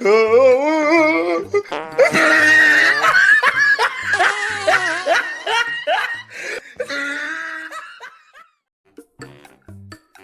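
Loud hearty laughter that dies away about eight seconds in, over background music with a steady beat that goes on alone near the end.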